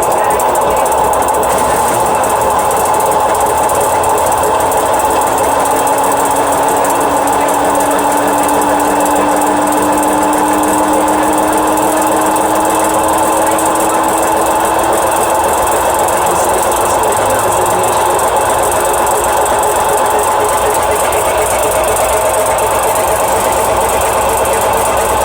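Samsung washer-dryer running with a very loud, continuous grinding rattle from its blown drum bearings. A faint hum climbs slowly in pitch around the middle as the drum speeds up.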